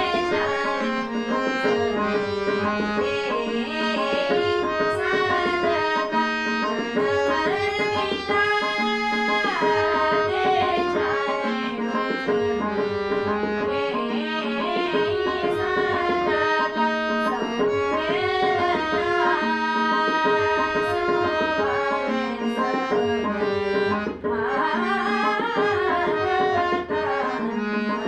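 Indian music: tabla playing a steady rhythm under a held drone note and a gliding, ornamented melody line.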